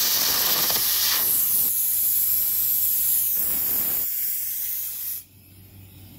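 Air carbon arc gouging: the loud, rough hiss of the carbon rod's arc and the compressed-air jet blowing away the molten steel. About a second in it turns to a thinner, higher hiss, and it drops away sharply about five seconds in.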